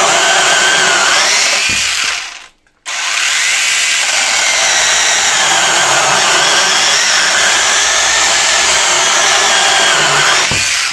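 Hychika 18 V cordless one-handed chainsaw, with a brushless motor, cutting through a softwood beam: a loud, steady motor whine with the chain tearing through the wood. It stops briefly about two and a half seconds in, then cuts on.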